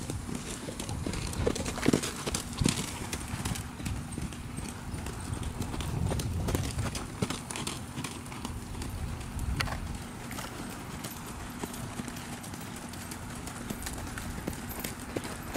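Horses' hoofbeats on the sand footing of a show arena: a run of irregular soft thuds as several horses pass.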